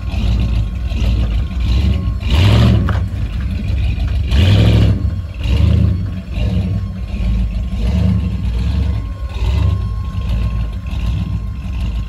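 Ford Bronco's engine revving in surges as the truck climbs up a rock shelf off-road, the two loudest pushes about two and a half and four and a half seconds in.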